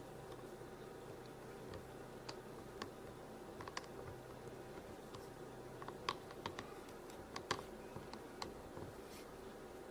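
Faint, scattered light clicks and taps of small craft pieces being handled and pressed together on a table top, a few a second at most, busiest in the second half.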